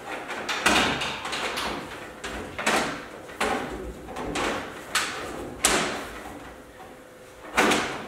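Black plastic air hose being pulled and dragged across the top of a CNC mill's enclosure: a series of about six scraping, rustling swishes with knocks, roughly a second apart.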